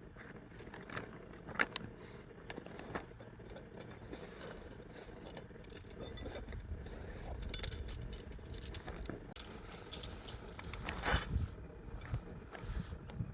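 Small metal pieces clinking and jangling in a string of sharp clicks, busiest in the second half with the loudest clink about eleven seconds in.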